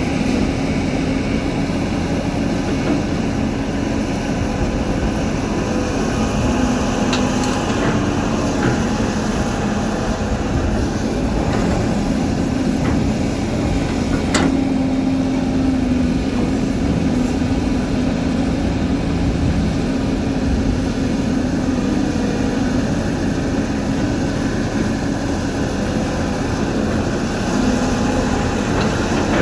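Caterpillar 320 hydraulic excavator's diesel engine running steadily, with a few sharp knocks, the loudest about 14 seconds in.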